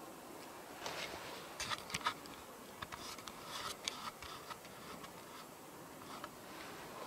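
Faint rustling and a scatter of sharp clicks, busiest between about one and four seconds in, from a handheld camera being handled and clothing brushing against it, over a steady hiss.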